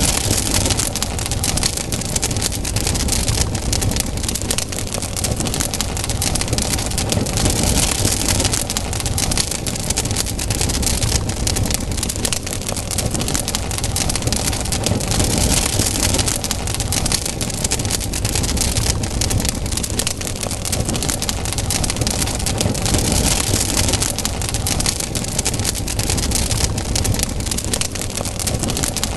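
Campfire burning: dense, continuous crackling and small pops over a steady hiss.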